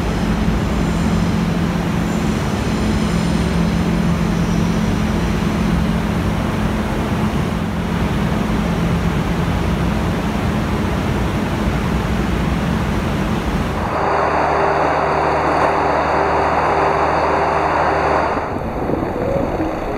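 Steady hum and rushing noise of a stationary TGV EuroDuplex at an underground platform, its auxiliary equipment and ventilation running. About fourteen seconds in, the sound cuts abruptly to a louder, hissier station platform ambience over a low hum.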